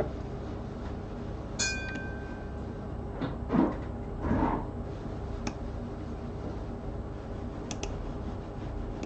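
Small tools being handled on a repair bench: a light metallic clink that rings briefly about one and a half seconds in, a couple of soft scrapes, and a few faint clicks, over a low steady hum.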